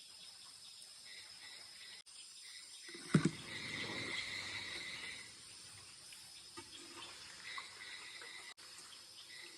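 Night insects chirping steadily. About three seconds in comes a short knock, then about two seconds of rushing, water-like noise.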